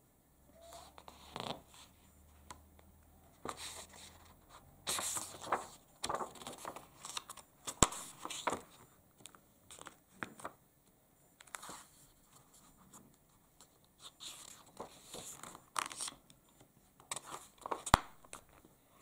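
Pages of a thin paperback picture book being turned and pressed flat by hand: a run of short paper swishes and rustles, with two sharp clicks, one about eight seconds in and one near the end.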